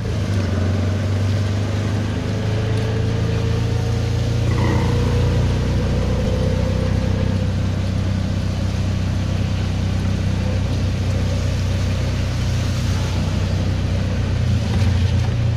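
Auto-rickshaw engine running steadily under way, heard from inside the open passenger cab, with a noisy rush of wind and tyres on the wet road. A brief higher tone sounds about four and a half seconds in.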